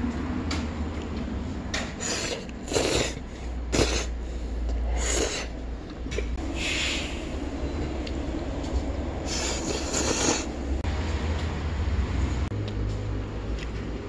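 Spicy sauce-coated noodles being lifted and tossed in a bowl with chopsticks to mix them: a series of short wet slapping and scraping sounds over a steady low rumble.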